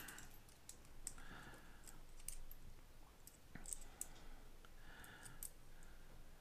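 Scattered faint clicks of copper wheat pennies knocking against each other as they are shuffled and sorted in the hands.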